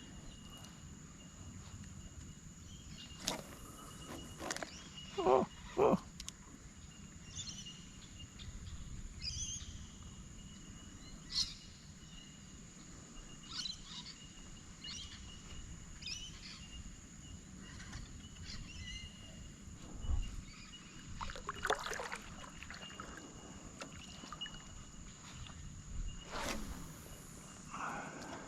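Bushland ambience on the water: birds calling in short chirps at intervals over a steady high-pitched insect drone, with a few louder calls or knocks about four to six seconds in and again twice near the end.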